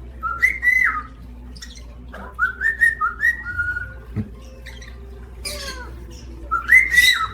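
Parrot whistling a series of short notes that slide up and down in pitch, mixed with a few harsh squawks.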